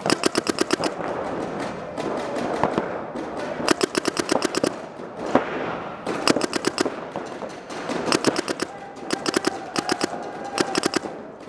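Paintball markers firing rapid strings of shots, about ten pops a second, in bursts of around a second with short gaps between them.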